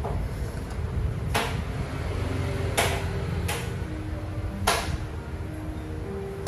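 Metal spoon and fork clicking against the plate and pineapple shell while serving fried rice: four sharp clicks, spaced unevenly, over a steady low hum.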